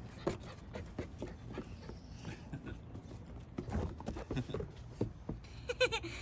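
A golden retriever panting and scuffling, with many scattered short clicks and scuffs; near the end a brief high-pitched squeal in a quick run of pulses.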